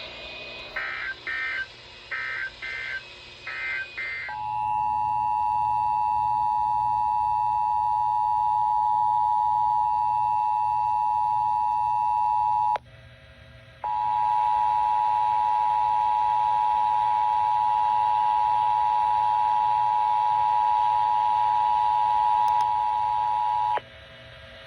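Emergency Alert System transmission: three short bursts of screechy digital header data, then the steady two-tone EAS attention signal. The tone holds for about eight seconds, drops out for about a second, and resumes for about ten more.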